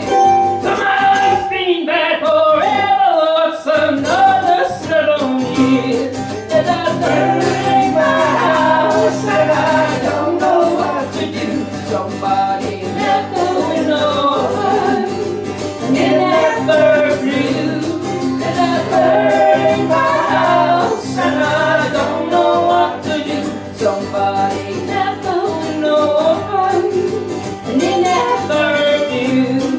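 A band playing a song: singing voices over guitar.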